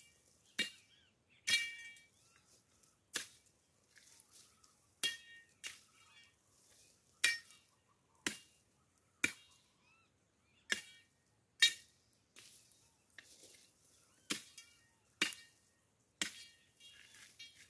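Machete chopping brush and branches: about a dozen sharp strikes, unevenly spaced about a second apart, many of them with a brief metallic ring.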